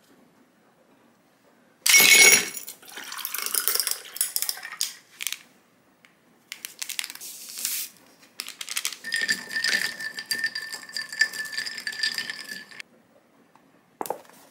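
Ice cubes clattering and clinking into a tall glass, then iced tea poured over the ice for a few seconds, stopping about three quarters of the way through. A short squeeze sound near the end.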